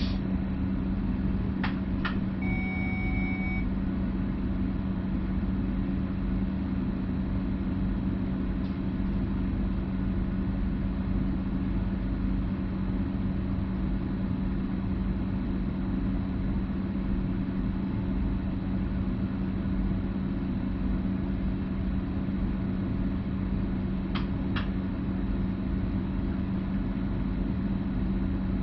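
Steady electrical hum and low rumble of a Stadler FLIRT Sm5 electric commuter train, heard from its driver's cab. Two sharp clicks come just before a short electronic beep about two to three seconds in, and two more faint clicks follow late on.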